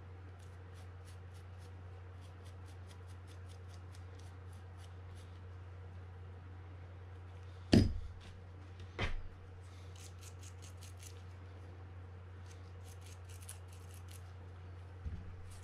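Small fishing-reel parts being cleaned by hand: runs of quick, light scratching strokes, with two sharp knocks about eight and nine seconds in, over a steady low hum.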